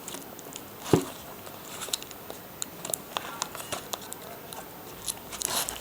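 Stiff packaging crackling and clicking as it is being cut open without a proper knife, with one sharper snap about a second in and quicker clicks near the end.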